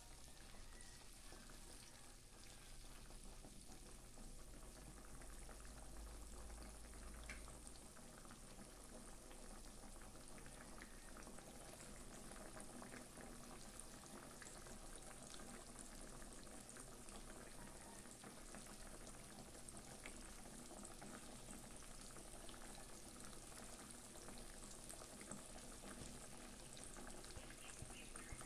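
Pot of liquid boiling on the stove: faint, steady bubbling with small crackles.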